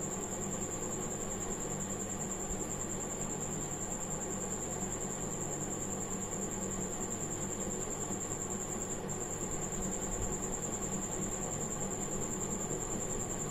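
Steady background hum and hiss with a constant high-pitched whine.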